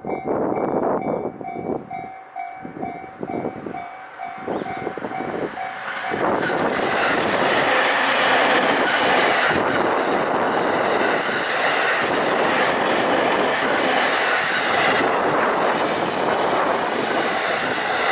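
Level-crossing warning bell ringing in rapid repeated electronic tones. About six seconds in, a train reaches the crossing and passes at speed, its loud rumble and wheels clacking over rail joints drowning out the bell.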